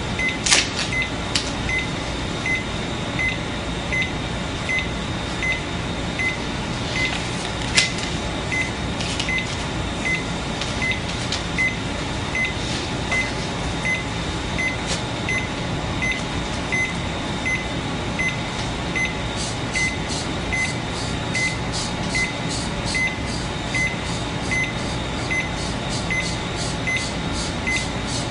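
Cardiac monitor giving a short high beep with each detected heartbeat, about once every 0.8 seconds, over a steady room hum. A few sharp handling clicks come near the start and about 8 seconds in.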